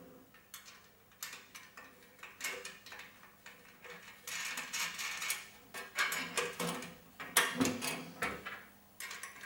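Bolts and nuts being fitted by hand into the metal bracket of a satellite dish: irregular metallic clicks at first, then longer scraping and rattling from about four seconds in, as the bolts go through the bracket's barrels and the nuts are put on.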